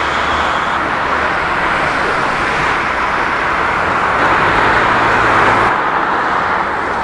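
Jet engines of a taxiing Boeing 787-9 heard from a distance: a steady rushing hiss. The sound changes abruptly near the end.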